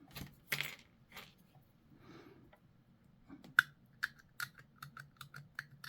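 Plastic miniature kit parts being handled at a work desk: soft rustling, then a quick run of sharp little clicks, about four or five a second, the first one the loudest.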